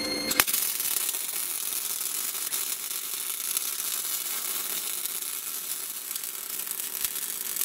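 Semi-automatic CO2 MIG welder running 0.8 mm wire at about 140–150 A, laying a build-up weld onto a steel shaft to restore its worn bearing seats. It gives a steady crackling sizzle that starts as the arc strikes about half a second in.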